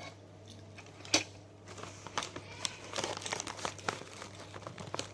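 Plastic snack bag crinkling and rustling as it is handled, in a quick run of sharp crackles with one louder snap about a second in.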